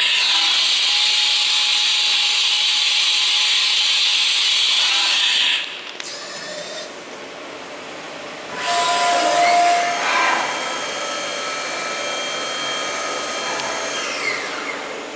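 Mikron-Haas VCE500 CNC machining center running: a loud hiss for about the first five seconds, then a motor whine that rises in pitch about ten seconds in, holds steady, and falls away near the end, as the spindle or axis drives speed up and slow down.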